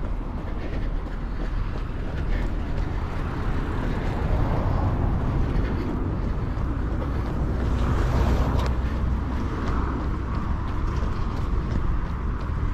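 City street traffic: a steady low rumble of road vehicles, swelling as one passes close about eight seconds in.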